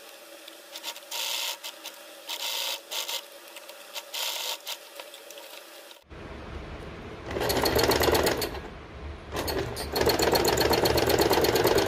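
Domestic sewing machine stitching free-motion embroidery, running in short, quieter bursts at first. About six seconds in come louder runs of rapid needle strokes, broken by a brief pause near nine seconds.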